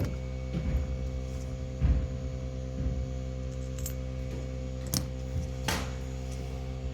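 Steady hum with a low knock about two seconds in and a few sharp clicks later on, from small carburetor parts and tools being handled on a bench.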